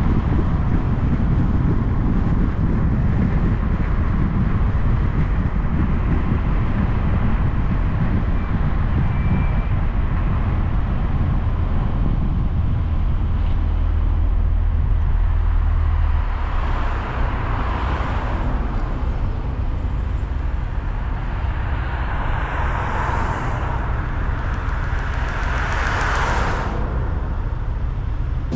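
Road noise from a car being driven on a paved road: a steady low rumble of tyres and engine that eases a little about halfway through. In the last third come three swelling whooshes of passing traffic.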